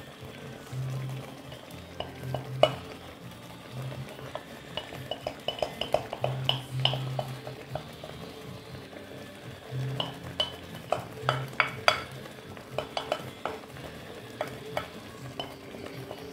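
Cream and chicken fillets frying in a hot pan: a faint steady sizzle with many small sharp pops and clicks coming in irregular clusters as the cream hits the pan.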